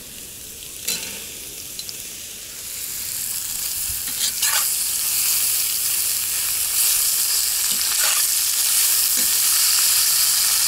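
Sliced onion sizzling in hot fat with frying meat in a cast-iron kazan, the sizzle swelling a couple of seconds in as the onion goes in. A few scrapes of a metal spatula as it is stirred.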